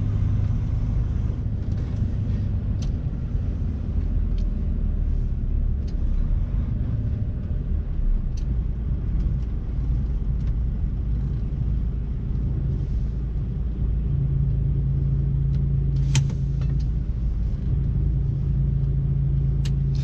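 Truck's diesel engine running at low speed, heard from inside the cab, a steady low drone with a few sharp clicks.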